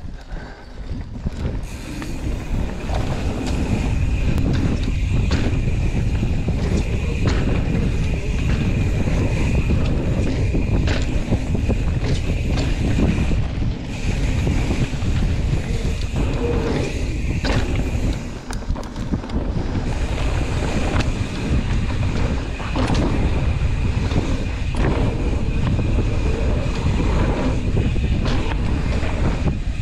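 Wind rushing over an action camera's microphone as a mountain bike rolls fast down a dirt jump trail, with tyre rumble and frequent knocks and rattles from the bike over bumps. A steady high whir runs underneath and breaks off twice.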